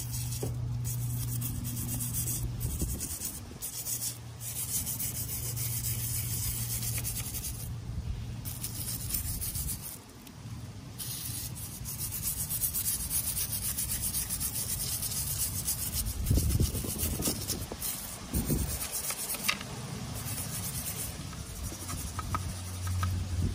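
Hand-scrubbing the grease off a Honda B-series transmission case, in repeated stretches of rubbing strokes. A low hum comes and goes underneath, and there are a couple of low knocks about two-thirds of the way through.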